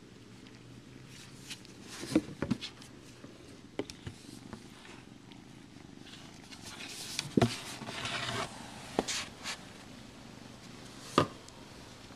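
Grey kitten purring steadily while grooming itself. Several sharp knocks come close by, the loudest about seven and a half and eleven seconds in.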